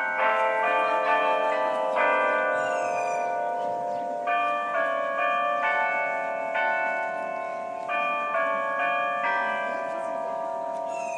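The Delacorte Clock's bells playing a melody, one ringing note after another, each note sustained and overlapping the next.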